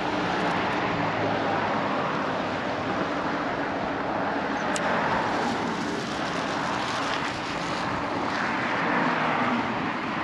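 Cars driving past on a bridge roadway: a steady rush of tyre and road noise that swells as each vehicle goes by, about halfway through and again near the end.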